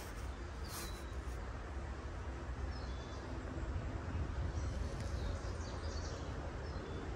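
Steady low rumble of distant traffic, with a few faint bird chirps about three and six seconds in.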